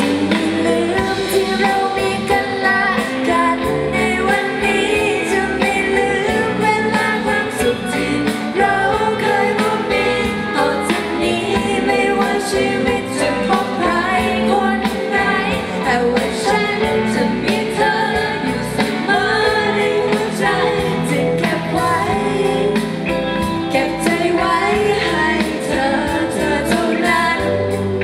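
A pop band playing a song live, with a singer's voice over the instruments and a steady drum beat.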